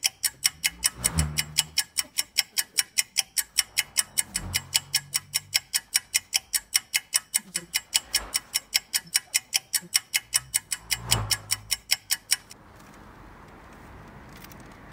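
Fast, even clock ticking, about four sharp ticks a second, with a low boom every three or four seconds. The ticking stops abruptly near the end, leaving a faint hiss.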